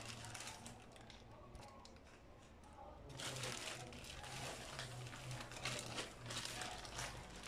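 Faint crinkling and rustling of hands handling ingredients, growing busier about three seconds in, over a low steady hum.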